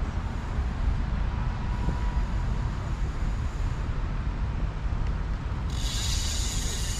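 Steady road-traffic rumble. Near the end a shrill, high sound starts and lasts about two seconds.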